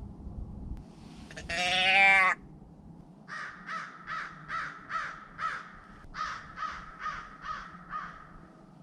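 A single loud, wavering bleat lasting under a second, about a second and a half in. Then a crow cawing in two runs of about six caws each, at roughly two to three caws a second.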